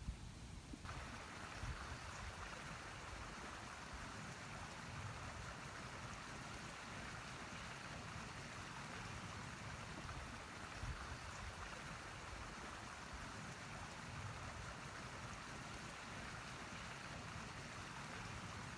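Steady outdoor hiss like running water, starting abruptly about a second in at an edit, over low wind rumble on the microphone.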